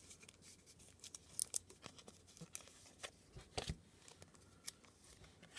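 Faint rustling and light clicks of a stack of trading cards in plastic penny sleeves being handled and slid between the fingers.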